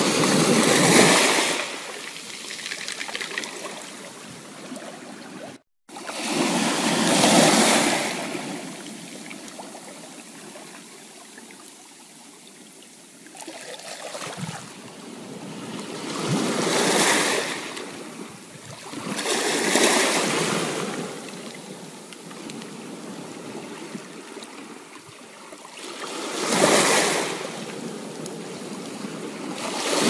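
Ocean waves breaking and washing up a beach: the surf swells and fades in about five surges a few seconds apart, over a steady hiss of water. The sound cuts out completely for an instant about six seconds in.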